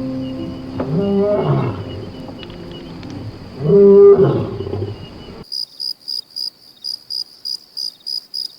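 A big cat calling: drawn-out pitched calls that rise and fall in pitch, the loudest about four seconds in, over a steady high insect whine. A little after five seconds it cuts suddenly to insect chirping, about three chirps a second.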